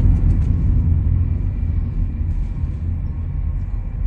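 Steady low rumble of a car's engine and road noise heard inside the cabin.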